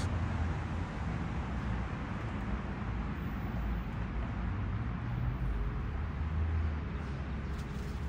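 Steady low rumble of distant road traffic, with a single sharp click right at the start.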